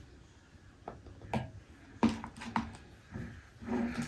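A few light knocks and taps of a container and utensil on a bowl and table while baking soda is added to slime, with a brief rustle near the end.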